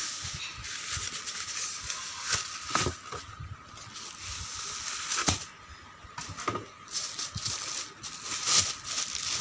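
Plastic packaging crinkling and rustling as a digital weighing scale is pulled from its box and unwrapped by hand, with a few sharp knocks of handling.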